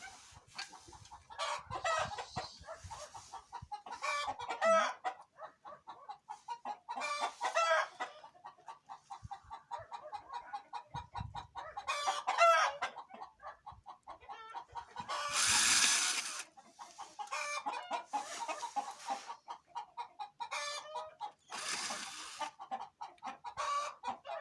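Chickens clucking continuously, with several longer rising calls among the rapid clucks. A few short bursts of hiss-like noise come in around the middle and later.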